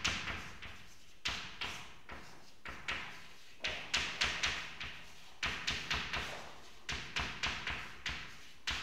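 Writing on a board: an irregular run of short, sharp taps and scratchy strokes, coming in quick clusters with brief pauses between them.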